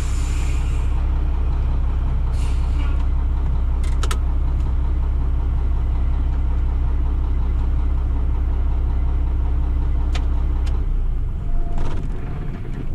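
Loaded dump truck's engine idling, heard inside the cab as a deep steady rumble, then shut off about eleven seconds in. A few sharp clicks come from the cab around it.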